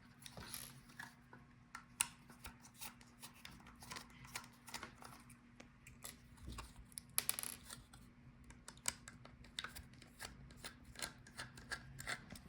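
Faint, irregular small clicks and light rubbing of a screwdriver backing the screws out of a laptop hard-drive caddy, with the drive and metal caddy being handled.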